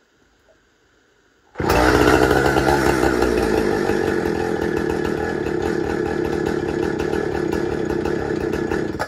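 Husqvarna 455 Rancher two-stroke chainsaw engine comes in suddenly about a second and a half in, runs steadily for about seven seconds, then cuts out abruptly. It dies running too lean, out of fuel, a sign the owner takes to mean the carburetor needs adjusting.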